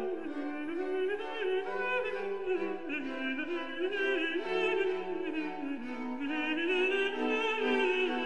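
Orchestral classical music, a slow melody line wavering in vibrato over sustained accompaniment.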